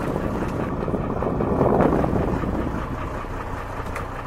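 Wind buffeting the microphone over the low, steady rumble of a small boat on the open sea.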